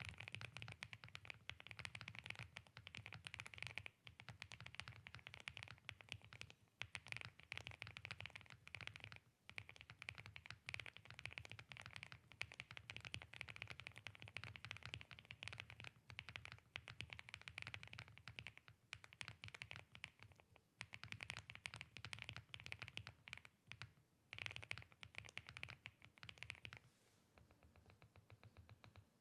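Mechanical keyboard fitted with Gateron Geek Purple linear switches being typed on in a fast, continuous patter of keystrokes with a deep thock. The typing thins out and goes quieter near the end.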